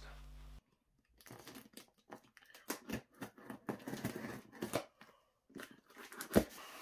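Packing tape being picked at, peeled and torn off a cardboard parcel by hand: irregular crackling rips and crinkles, a short lull, then one sharp knock near the end.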